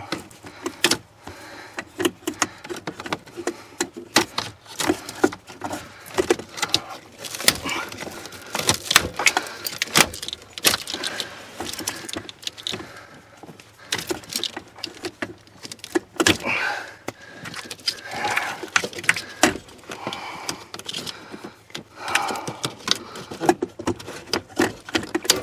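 Dash wiring harness of a 1997–99 Toyota Camry being unplugged and pulled out by hand: many irregular sharp clicks, clacks and rattles of plastic connectors and loose wires, with rustling and scraping between them.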